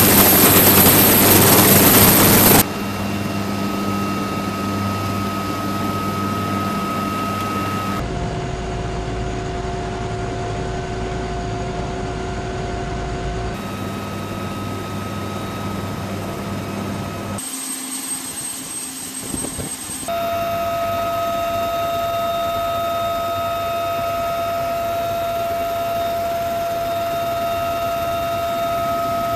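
UH-1Y Venom helicopter's twin turbine engines and rotors running: a steady whine with rotor noise, loud for the first two or three seconds beside the spinning tail rotor. After that it drops abruptly to a lower, steadier drone, with its pitch and tone changing suddenly several times.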